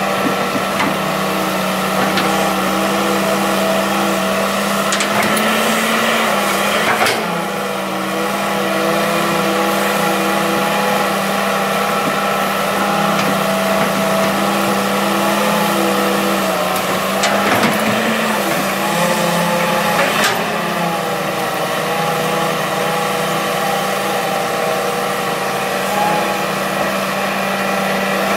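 Diesel engine of a Hitachi EX200-3 hydraulic excavator running steadily while it works. Its pitch dips and shifts under hydraulic load about seven seconds in and again around seventeen to twenty seconds in, with a few knocks along the way.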